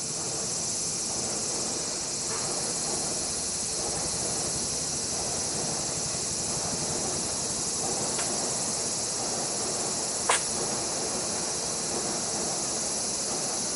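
Steady high-pitched insect chorus, with one short, sharp sneeze from a kitten about ten seconds in, the loudest moment.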